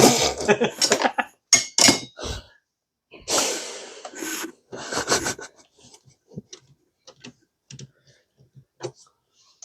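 Hand tools working on metal under the hood: clicks and clatters with a few longer scraping rasps in the first half, then light, scattered ticks.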